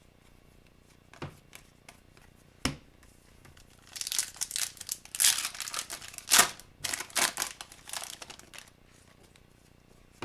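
A foil trading-card pack wrapper being torn open and crinkled: a couple of light clicks, then a run of crackling, rustling bursts from about four seconds in to about eight seconds.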